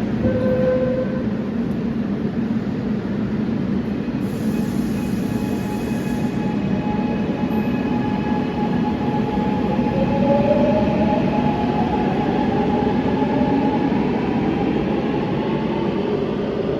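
Gwangju subway train running, heard inside the carriage: a steady rumble of wheels and car noise. In the second half a motor whine rises slowly in pitch.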